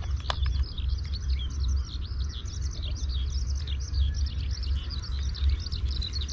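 Many small birds chirping at once, a dense run of short high chirps, over a steady low rumble.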